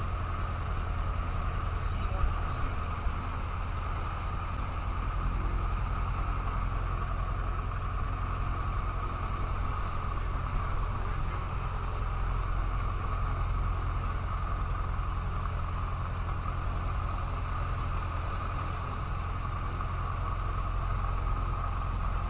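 Cessna 150's Continental O-200 four-cylinder engine and propeller running steadily, a constant low drone heard from inside the cabin.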